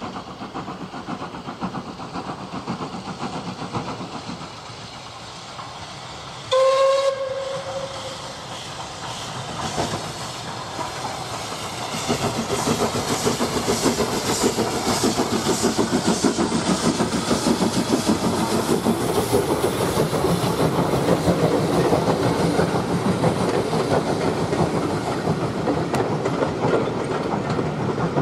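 Double-headed steam train, Caledonian Railway 0-4-4T No.419 leading a BR Standard 4 tank, approaching and passing close by with steady exhaust beats and wheels on the rails. A steam whistle sounds once, for about a second and a half, about six and a half seconds in, the loudest moment; the train grows louder from about twelve seconds as the engines and then the coaches go by.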